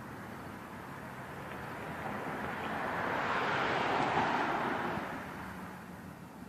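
A vehicle passing by: a noisy rush that swells to a peak about four seconds in, then fades.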